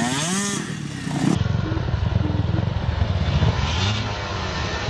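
Several motocross bike engines running at low speed. Just after the start one engine gives a quick rev that rises and falls.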